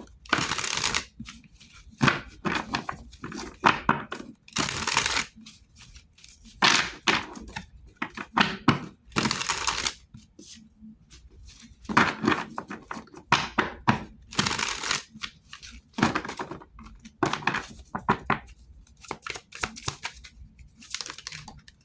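A deck of tarot cards being shuffled and handled: repeated rustling, brushing bursts of card against card, some lasting about a second, with shorter flicks and taps between them.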